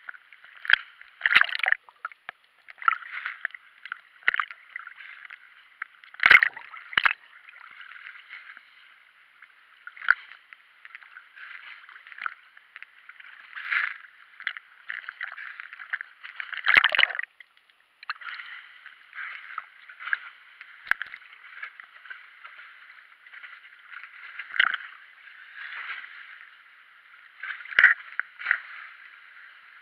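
Sea water lapping and sloshing around a camera held at the waterline, with irregular sharper splashes or knocks, the loudest about 6 and 17 seconds in.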